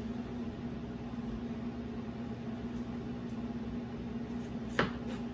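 Steady hum of a kitchen appliance or fan, with a single sharp knock near the end as a knife comes down on a cutting board while slicing a red onion.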